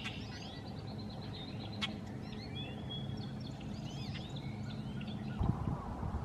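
Outdoor ambience: small birds chirping and twittering in the background over a steady low hum, with one sharp click about two seconds in. Near the end a louder low rumble comes in.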